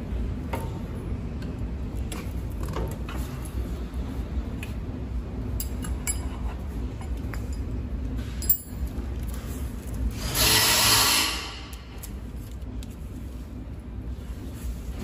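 Hand handling of a packing machine's film roll and its metal shaft: scattered light clicks and knocks over a steady low hum, with one loud rushing scrape about ten seconds in that lasts a second and a half.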